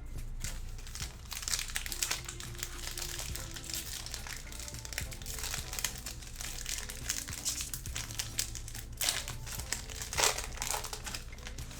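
Plastic wrapper of a Panini Prizm football hobby pack being crinkled and torn open by hand, with louder bursts of crackling about a second and a half in and again near the end.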